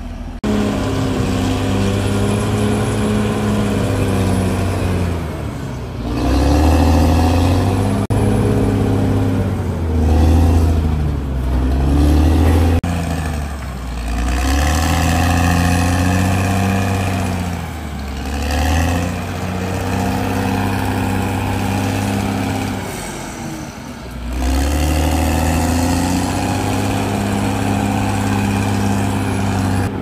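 Caterpillar D6R XL bulldozer's diesel engine working, its note sagging and climbing back several times as the machine loads and unloads.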